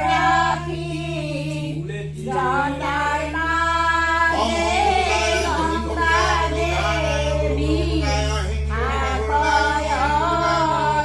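A voice singing a slow devotional chant, holding and bending long melodic notes over a steady low drone.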